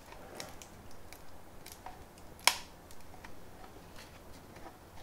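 Faint clicks and taps of a large 3D-printed plastic part being handled and turned over, with one sharper click about two and a half seconds in.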